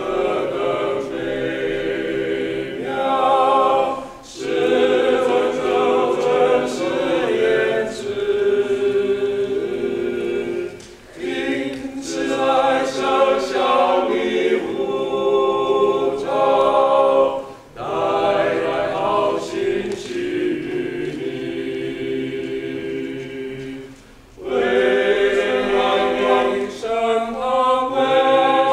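Five men singing a cappella in close harmony, several parts at once. They sing in long phrases, each broken off by a brief pause for breath about every six to seven seconds.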